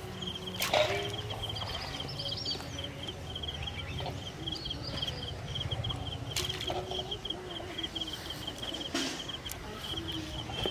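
An insect, cricket-like, chirping in a steady run of short, high-pitched pulses over low outdoor rumble, with a few brief sharp sounds, the loudest about a second in.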